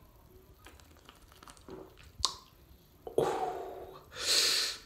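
Mouth sounds of a man drinking beer: quiet sipping and swallowing with small clicks, then a short voiced sigh and a loud breath near the end.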